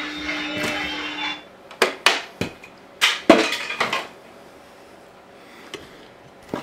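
Handling noise: a quick series of sharp knocks and clatters from hard objects being handled close to the microphone, between about two and four seconds in, then quiet room tone. Before that, a louder steady sound with a held tone cuts off about a second and a half in.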